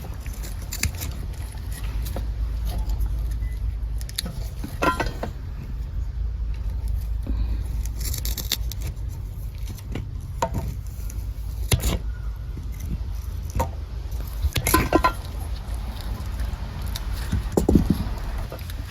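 Scissors cutting the plastic sheathing off chandelier wires, with handling of the wires and fixture: about half a dozen scattered snips and clicks spaced a second or more apart, over a steady low rumble.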